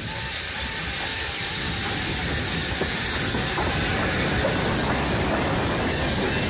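WD Austerity 2-10-0 steam locomotive 90775 passing close by with steam hissing and its running gear working. It grows louder over the first couple of seconds, then holds steady. Short repeating level-crossing warning tones, about three a second, fade out under it early on.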